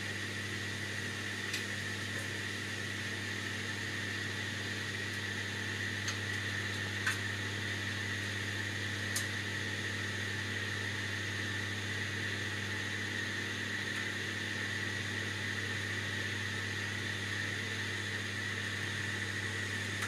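Steady mechanical hum and hiss with a high, even whine, broken by a few faint light clicks.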